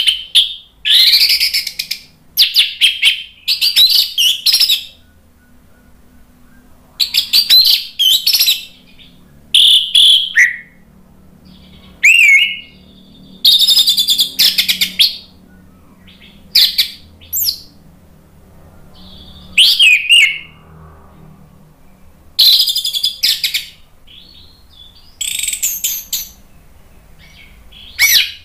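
Orange-headed thrush (anis merah) singing loudly in full song: short phrases of varied whistles, rapid trills and down-slurred notes, one every second or two with brief pauses between.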